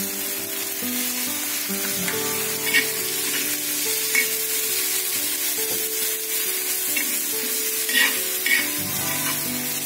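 Onion-tomato masala sizzling in oil on a cast-iron tawa while a metal spatula stirs and scrapes it, with a few short scrapes against the pan. Soft background music of long held notes plays underneath.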